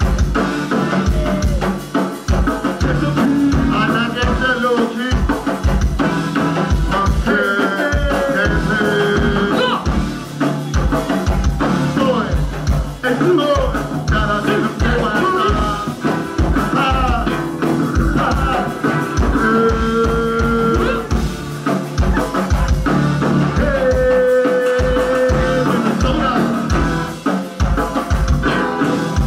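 Live band playing: a drum kit keeps a steady kick-drum beat under bass and a melodic lead line.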